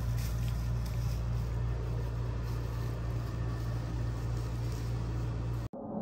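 Steady low mechanical hum, such as room machinery running, with a few faint handling clicks from eating by hand early on; the hum cuts off abruptly near the end.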